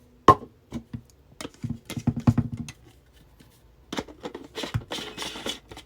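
Plastic blender bottle and lids being handled on the base of a portable USB blender: a series of sharp clicks and knocks, with a rougher scraping, rustling stretch near the end.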